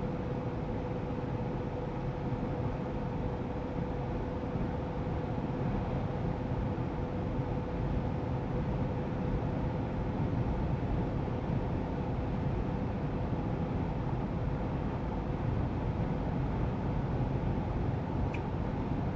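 GAZ Sobol van driving at a steady road speed: an even engine and road-noise rumble with a faint steady whine that fades about halfway through.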